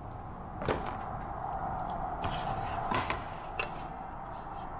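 A few short wooden knocks and clatters as a mahogany board and a metal combination square are handled and set down on a wooden workbench, over a steady background hum.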